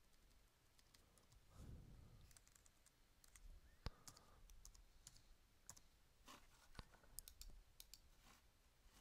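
Faint, scattered clicks of a computer keyboard being typed on, over near silence.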